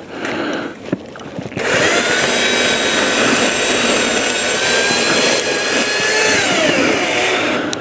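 Power saw cutting tree limbs: the motor starts about a second and a half in and runs steadily with a high whine for about six seconds, then its pitch falls and it stops near the end.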